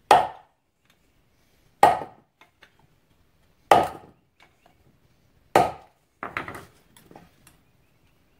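Four sharp metal taps, one about every two seconds, then a few lighter quick taps near the end, as a retaining clip is tapped down toward its groove on the ATV's wheel-bearing housing. It is not seating: the clip won't go down into the groove.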